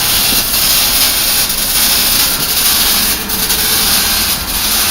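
Steady, loud rushing machine noise with a faint tick repeating about once a second.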